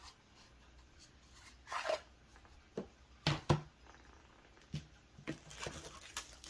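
Hands handling paintball marker parts in a cardboard box: a few light knocks and clicks as pieces are set down and picked up, with plastic wrap starting to rustle near the end.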